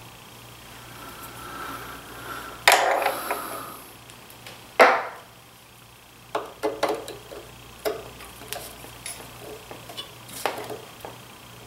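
Metal-cutting snips, used in place of snap ring pliers, clicking and scraping against a snap ring and shaft on a DeWalt 735 planer as the ring is squeezed. The sounds come as irregular clicks and knocks, with louder ones about three and five seconds in.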